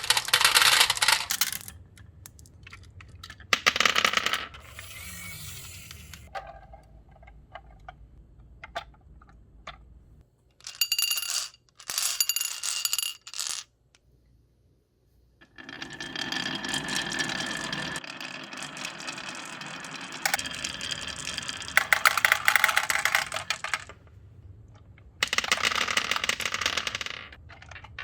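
Marbles rolling and clattering down a toy marble run with ringing clinks, in several spells separated by short pauses.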